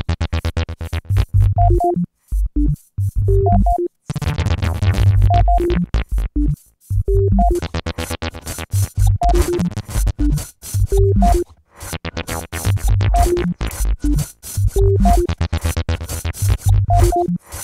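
Experimental electronic music: short, stuttering synthesizer notes over a heavy bass in a chopped, stop-start pattern, cutting off abruptly into brief silences several times.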